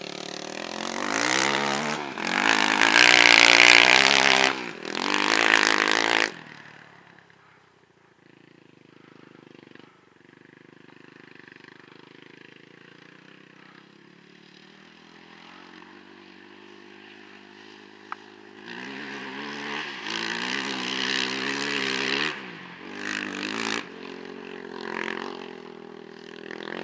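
Quad ATV engine revving up and down as it rides across sand, loud for the first few seconds, then quieter and steadier, then revving up and down again from about two-thirds of the way in.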